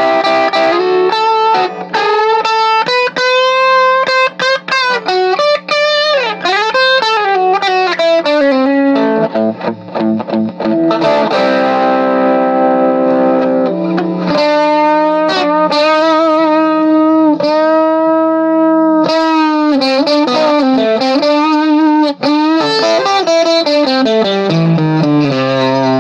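Fender Stratocaster electric guitar played through a 5C3 tube amp head and a cabinet with a Scumback M75 speaker. Single-note lead lines with string bends and vibrato, a run of chords in the middle, and the playing cut off at the very end.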